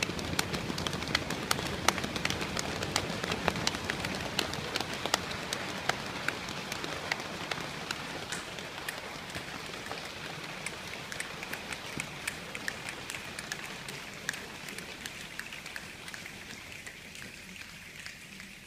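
An audience imitating a rainstorm with their hands: a dense patter of sharp snaps and slaps over a rushing hiss, thinning out and fading steadily as the storm dies down.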